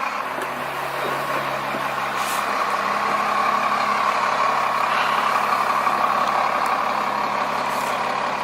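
Motorhome engine running as the big rig drives slowly closer, growing gradually louder over the first few seconds and then holding steady.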